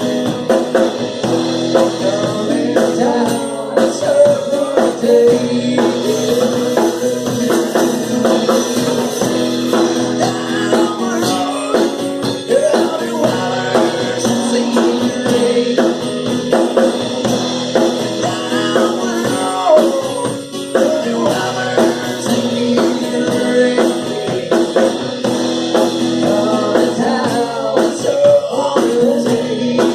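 A band playing a song: a singer over guitar and a drum kit, loud and steady throughout.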